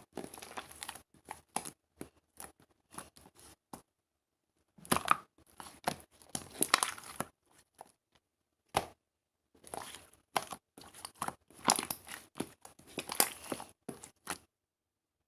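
Irregular bursts of crinkling and tearing handling noise, in short rustles with gaps, stopping about a second before the end.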